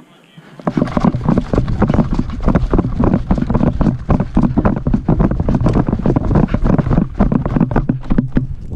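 Loud, rapid, irregular thudding and jostling over a low rumble, starting about a second in: a body-worn camera shaken about as the player moves quickly, with wind and handling on the microphone.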